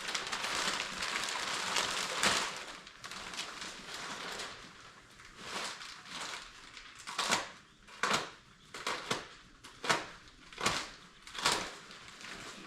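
Packaging being handled, rustling and crackling, with a run of about eight short, sharp crackles in the second half.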